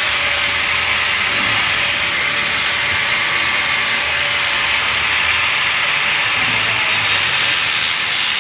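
Angle grinder with a cutting disc cutting into the steel at the wheel-bearing end of a Toyota Tamaraw FX axle shaft: a steady grinding hiss with the motor's faint whine beneath. The old bearing is being cut off with the disc instead of heated with a torch, so the axle steel does not soften.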